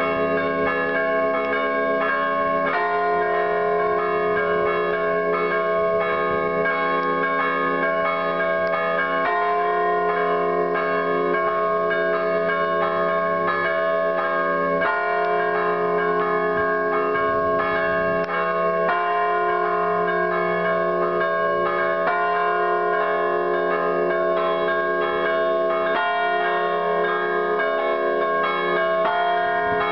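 Church bells pealing without a break, several bells ringing together in a dense, overlapping clang at a steady level.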